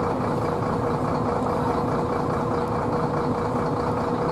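Large engine idling steadily, a constant hum with an even drone underneath.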